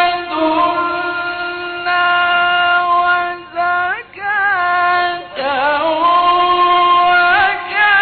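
A male Quran reciter chanting unaccompanied in the melodic Egyptian mujawwad style, holding long high notes. Around the middle, two short breaths are followed by rising, wavering ornaments.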